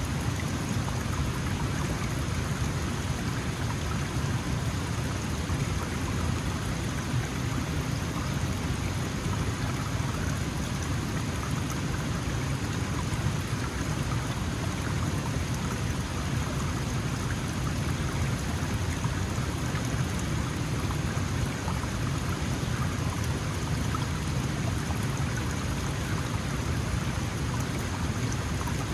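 Small mountain stream flowing and burbling over rocks in a steady, even rush of water, with a deep low rumble under it.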